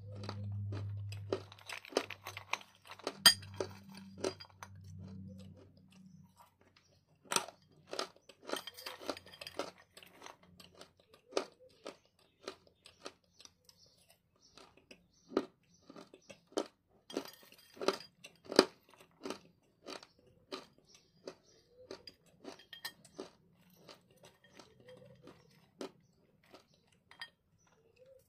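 Close-up crunching and chewing of hard chunks of eating clay: sharp crunches at irregular intervals with softer chewing between them. A low hum sounds through the first six seconds or so.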